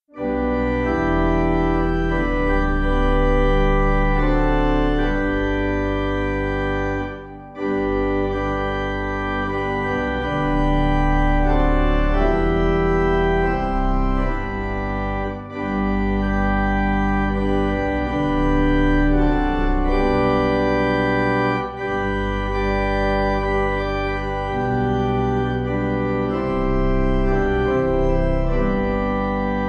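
Organ music: slow, sustained chords that change every second or two, with brief breaks about seven and fifteen seconds in.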